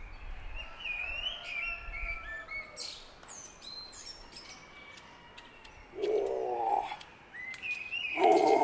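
Birds chirping and singing in short repeated calls. Two louder, lower-pitched sounds come about six seconds in and near the end.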